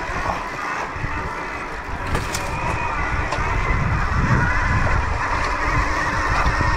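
A motor vehicle running steadily, with a few light clicks about two to three seconds in.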